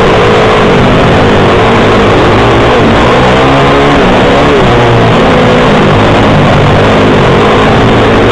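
Pit bike engines running hard, heard through a camera mounted on the bike. The engine note rises and falls as the throttle is opened and closed through the turns, and the sound is very loud throughout.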